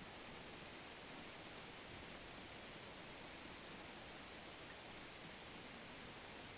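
Faint, steady hiss of background noise (room tone), with a couple of tiny ticks.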